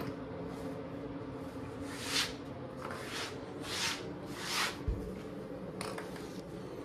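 Four soft scuffing sounds, then a low thump about five seconds in, over a steady low hum: someone moving about on a laminate floor, hiding plastic Easter eggs.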